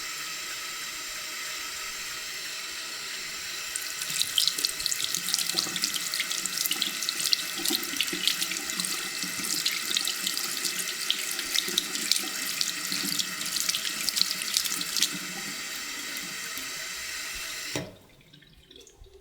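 Tap water running into a sink in a steady stream. From about four seconds in, hands washing under the stream add a spattering splash for about eleven seconds, then the plain stream returns until the tap is shut off suddenly near the end.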